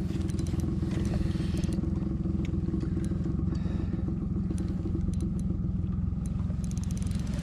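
Steady low engine drone with an even texture, with a few light clicks and rattles about a second in and near the end.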